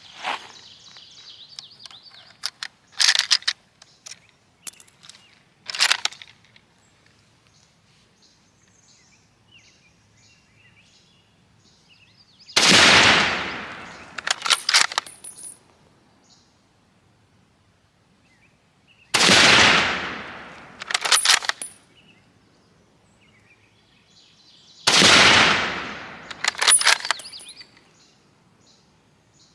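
M1903A3 Springfield bolt-action rifle in .30-06 fired three times, about six seconds apart. Each shot has a long fading report, followed a second or two later by a quick clatter of metal clicks as the bolt is cycled to eject the case and chamber the next round. Before the first shot there are a few earlier bursts of bolt and metal clicks.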